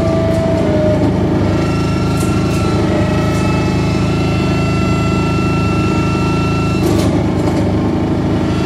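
Saxophone feedbacker: a saxophone driven into electronic feedback, giving a loud, dense harsh-noise drone with a heavy low rumble. Steady whistling feedback tones ride over it, one high tone held from about two seconds in until near seven seconds, where it cuts off.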